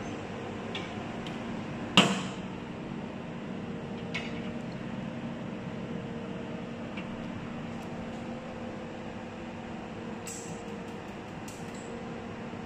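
Steady electrical hum of a desktop jewelry laser welding machine and its air-cooling system. One sharp, loud clack about two seconds in, with a short ring, and a few light ticks later on.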